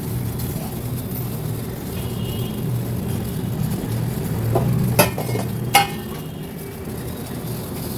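Steady low rumble of a gas stove burner under a pot of boiling water, with two sharp knocks about five and six seconds in.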